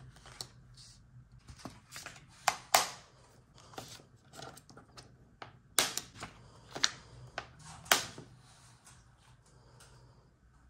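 Small round magnets clicking against a stainless-steel refrigerator door as photo prints are pinned up, with light rustling of the prints between the clicks. There are several sharp clicks, the loudest in two clusters a few seconds apart, over a low steady hum.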